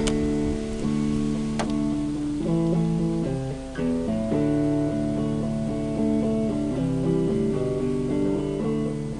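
Background guitar music, with chords that change every second or so.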